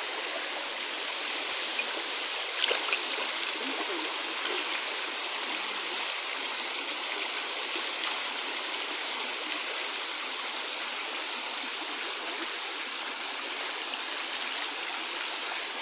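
Shallow rocky stream running steadily, with a few light splashes from hands and feet in the water.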